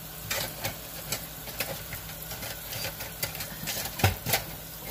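Irregular light clicks and knocks of things being handled on a kitchen countertop, with one louder knock about four seconds in, over a steady low hum.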